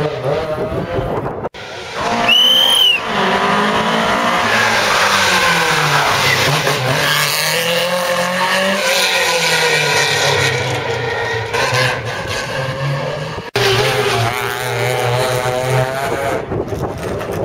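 Rally cars' engines running at high revs as they pass at speed, the note rising and falling through gear changes, with a brief high tyre squeal about two seconds in. After an abrupt break about three-quarters of the way through, another rally car's engine approaches with a steadier note.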